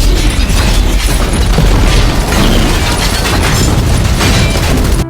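Loud, dense action-film battle sound: explosions and booms over a deep rumble, with no letup, cutting off abruptly at the very end.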